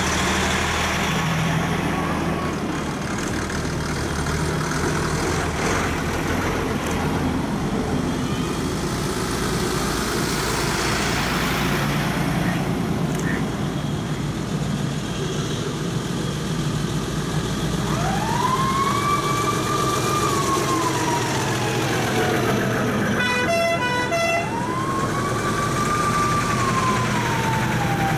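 Old trucks driving past with their engines running. In the second half a vintage fire engine's siren wails twice, each sweep rising and then slowly falling, with a short burst of stepped horn-like tones between the two sweeps.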